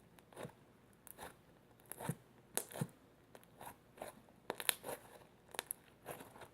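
Slime with foam beads mixed in being squeezed and kneaded by hand, giving faint irregular crunching and crackling pops.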